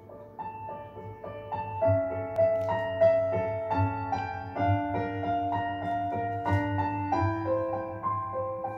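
Solo piano playing a slow, gentle melody of held notes, reproduced through a DIY two-way loudspeaker in a listening room.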